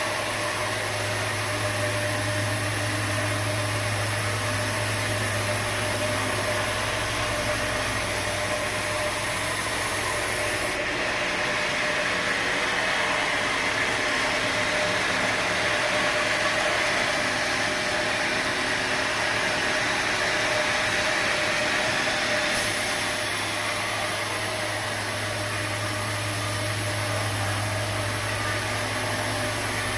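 Sawmill machinery running steadily with a dense, even mechanical noise. Its low hum drops out abruptly about eleven seconds in and returns just as abruptly about twenty-two seconds in.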